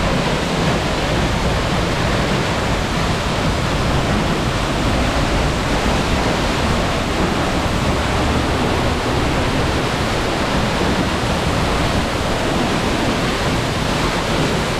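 A waterfall heard close up: a loud, steady, unbroken rush of falling water.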